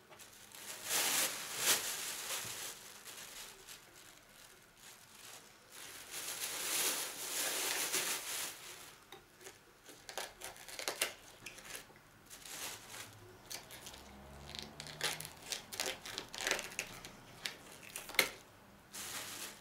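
Plastic bags crinkling and rustling as vegetables are handled, then a run of short crisp snaps and cuts as a knife cuts the leaves and stalk off a fresh cauliflower.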